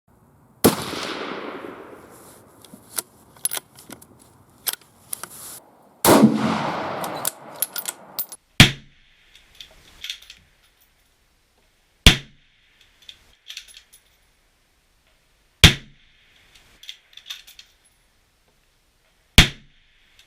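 Six rifle shots from a .260 Remington precision rifle. The first two, about five seconds apart, are followed by long rolling echoes that die away over a couple of seconds; the last four are short sharp cracks about three and a half seconds apart, with quieter clicks in between.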